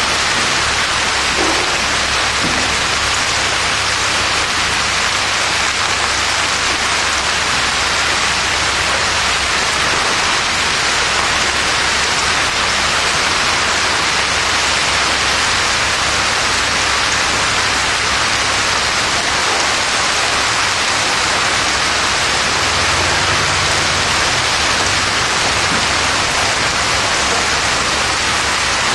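Heavy rain mixed with golf-ball-sized hail pouring onto pavement and grass in a severe thunderstorm: a loud, dense, unbroken hiss.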